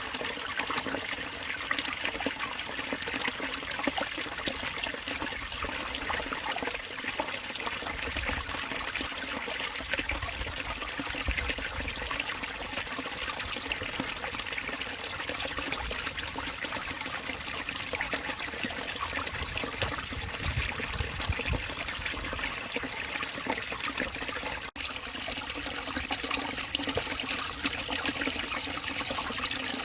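Small forest stream murmuring and trickling over its bed, a steady sound throughout, with a momentary dropout about 25 seconds in.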